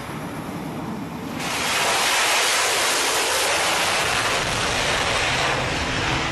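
F/A-18 jet engines at full power for a catapult launch: a loud, steady rushing noise that swells about a second and a half in and holds.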